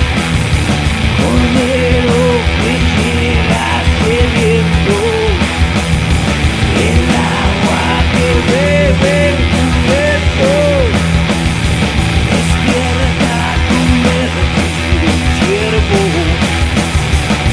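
Loud rock music with electric guitar over a steady drum beat; the lead guitar bends its notes up and down.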